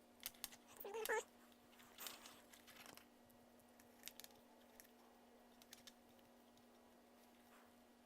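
Faint handling noise from small parts: scattered light clicks and a short rustle, with a brief wavering squeak about a second in.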